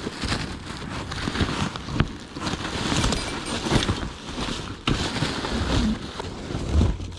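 Rummaging through a box of stored items: irregular rustling and crackling with small knocks as things are handled and moved.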